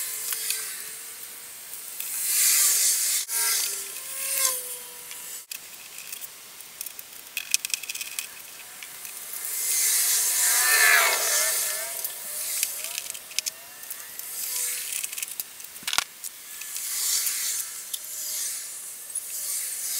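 Rubbing and scraping handling sounds from working on the iMac's insides, in several spells of a second or two, with a few sharp clicks.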